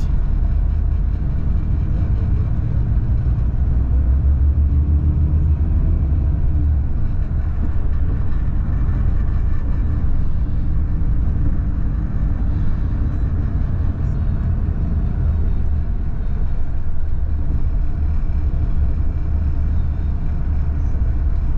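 Steady low rumble of an intercity coach on the move, engine and road noise heard from inside the passenger cabin.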